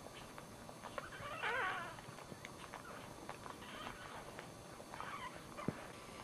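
Newborn dachshund puppy squealing: three short, high, wavering squeaks, the first the loudest, while the mother licks it. Small wet ticks come between the squeaks, and there is a sharp click near the end.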